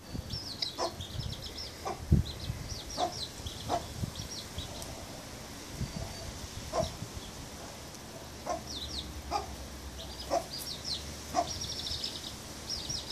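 Baby chicks peeping: quick runs of short, high chirps that come in clusters through the whole stretch, mixed with occasional shorter, lower-pitched calls.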